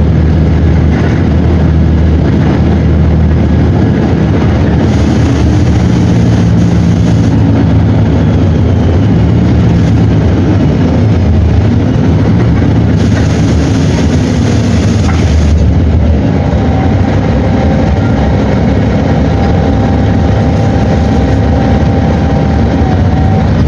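Mercedes-Benz OM 457 LA six-cylinder in-line turbocharged, intercooled diesel engine of an O-500 bus running, its pitch rising and falling as engine speed changes. Two spells of hiss, each a couple of seconds long, come about 5 and 13 seconds in, and a steady whine joins in the last third.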